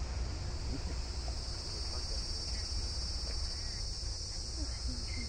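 Steady, high-pitched insect chorus, louder from about a second and a half in, over a low rumble.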